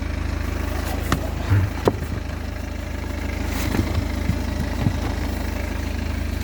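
BMW 318d's 2.0-litre four-cylinder turbo diesel idling with a steady low hum, while a car floor mat is lifted and handled in the footwell with a few short knocks and rustles.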